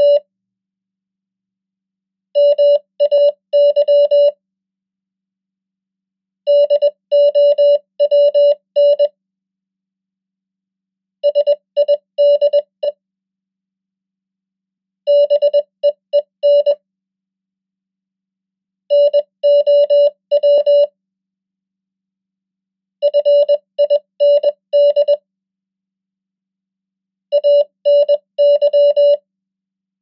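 Morse code (CW) practice tone, one steady beeping pitch keyed into dots and dashes at 20 words per minute. It sends seven common English words, one at a time with about two-second pauses between them: MAY, DOWN, SIDE, BEEN, NOW, FIND, ANY.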